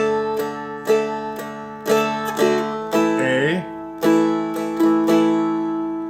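Seagull Merlin M4 four-string dulcimer-style instrument strummed across all strings, about two strums a second, changing from a D chord to an A chord a little past halfway.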